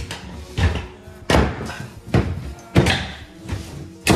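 Kitchen cabinet plinth being pushed and knocked onto the clips on the cabinet legs: a series of about six sharp thuds and knocks, each under a second apart.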